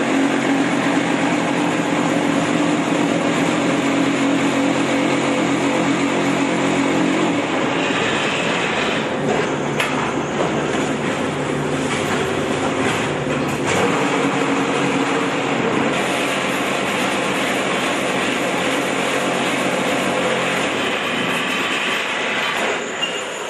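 QT4-26 concrete block making machine running: a loud, continuous mechanical rattle and hum. The steady hum changes about a third of the way in and drops out near the end as the machine moves between stages of its cycle.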